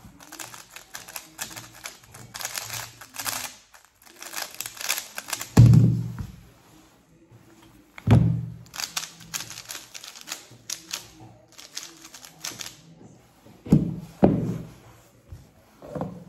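A 3x3 speedcube turned in fast runs of clacking clicks during a solve of about five and a half seconds, ending in a heavy thud as the hands come down on the timer. A second run of cube-turning clicks follows, then a few softer thumps.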